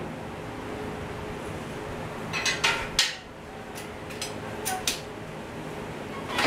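A few sharp metal clanks and clinks from an engine hoist and the Chevy 235 engine hanging from it as the engine is worked down into its motor mounts, the loudest about halfway through and a few lighter ones a second or two later. A steady low hum underneath.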